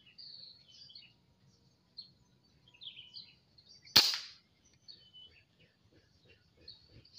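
A single air rifle shot about four seconds in: one sharp crack with a short ringing tail. Small birds chirp faintly before and after it.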